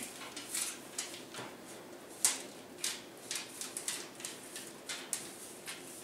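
Aluminum foil tape crinkling and rustling as it is smoothed by hand along the edge of heat tape. Irregular short crackles, the loudest a sharp click about two seconds in.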